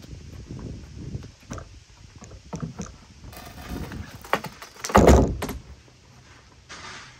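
Old deck boards being pried up: scattered wooden knocks and creaks as the boards are worked loose, with one heavy thud about five seconds in.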